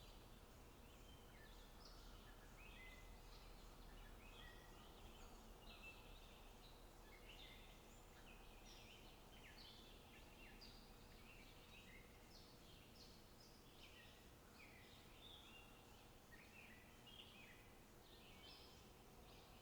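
Faint outdoor birdsong: many short chirps and trills from small birds throughout, over a low, steady background hiss.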